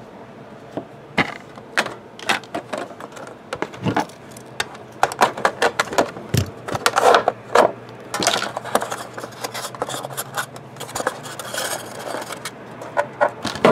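A trading-card box being handled and opened: a folding utility knife works at the seal of its plastic lid, then the lid and a foam insert are pulled out. The sound is irregular clicks, scrapes and rustles of plastic and foam.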